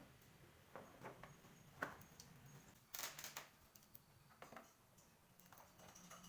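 Faint, scattered light clicks and taps, the sharpest a little under two seconds in, with a brief scrape about three seconds in, against a quiet room.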